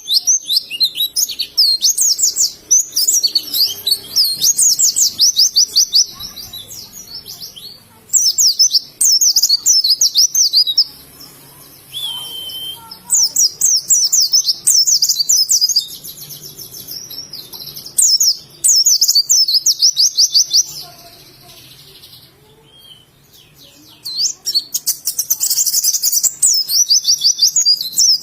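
Pleci (white-eye) singing in long phrases of rapid, high, sweeping chirps. Five bouts of several seconds each are separated by short pauses.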